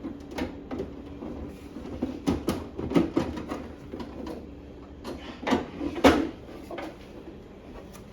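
Irregular knocks and clicks of things being handled, with a few louder knocks about halfway through.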